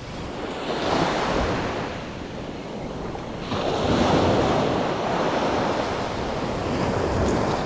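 Ocean surf breaking and washing up the beach, swelling about a second in and again about three and a half seconds in, with wind buffeting the microphone.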